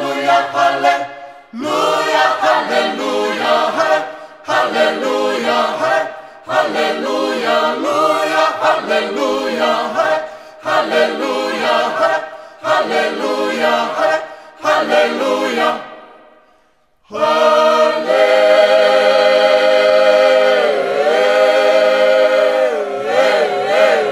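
Tongan gospel choir singing a cappella in several voice parts, in short phrases of about two seconds broken by brief pauses. About two-thirds of the way through, the voices hold one long chord, with the pitch wavering in its middle.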